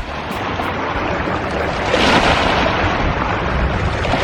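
Wind buffeting the microphone, a gusty low rumble over a steady rushing hiss from the flowing river, swelling a little about two seconds in.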